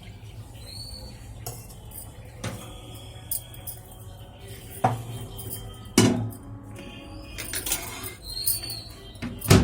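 Utensil clinking and knocking against a borosil glass bowl, a few scattered sharp knocks, with a heavy thump near the end.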